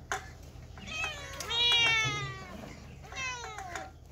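A cat meowing twice: a long, loud meow about a second in, then a shorter meow that falls in pitch near the end.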